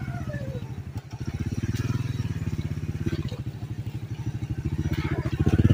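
Small motorcycle engine running at low speed over a rough, muddy dirt track, its exhaust pulsing steadily. The engine briefly eases off about a second in, then gets louder near the end as the throttle opens.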